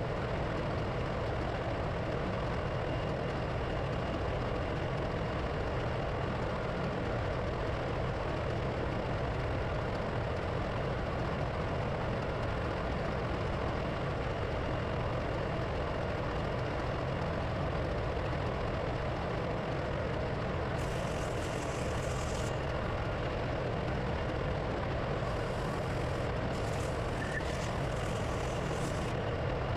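Steady, unbroken drone of running diesel engine-room machinery. Short hissing bursts come about two-thirds of the way through and again near the end.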